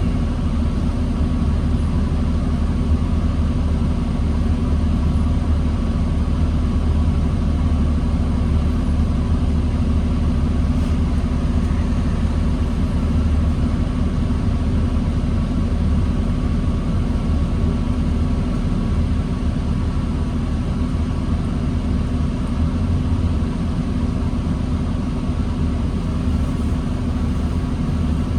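2009 New Flyer D40LFR diesel transit bus running steadily at low engine speed, a constant low rumble with a faint steady whine and no revving.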